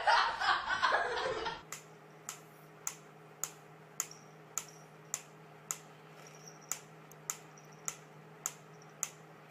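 Sharp ticks at an even, clock-like pace, a little under two a second, over a faint steady hum. They follow a louder, noisy first second and a half.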